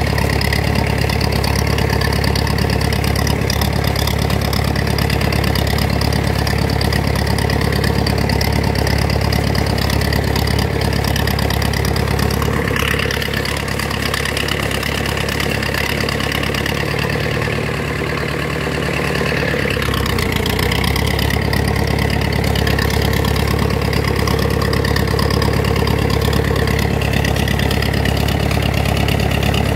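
Tractor diesel engine running steadily while pulling a cage-wheel plough through a weedy field. Its note shifts and eases for several seconds about halfway through, then returns to the same steady run.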